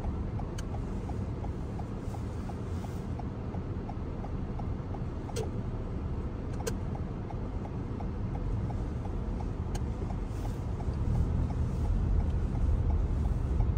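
Car cabin sound while driving: a steady low road and engine rumble, with a turn signal ticking evenly, a bit over two ticks a second, and a few sharp clicks. The rumble grows louder near the end.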